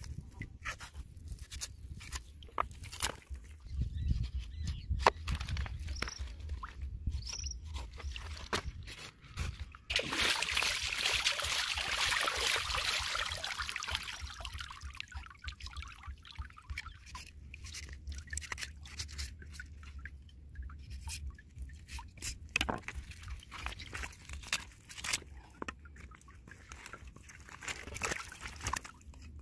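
Knife cutting and hands working raw alligator hide and meat: scattered short clicks, scrapes and wet handling noises. A few seconds of dense hiss come about a third of the way through.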